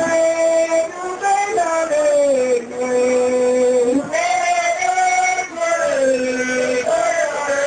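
A man singing into a handheld microphone, amplified through a PA, holding long notes of about a second each and sliding down in pitch from one to the next, with brief pauses for breath.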